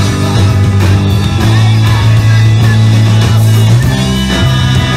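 Live progressive rock band playing at full volume: electric guitar, bass guitar, drum kit and keyboards. A heavy bass line holds each low note for a second or so before moving to the next.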